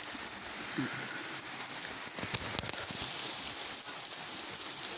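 Heavy rain pouring down on a lawn and leafy trees: a steady hiss of falling drops, with a few sharper drip ticks about halfway through.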